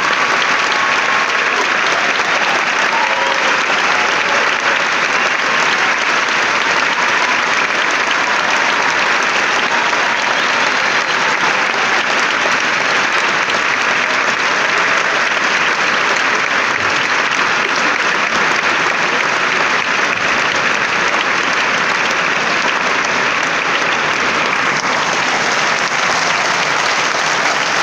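Large theatre audience applauding: steady, sustained clapping from a full house.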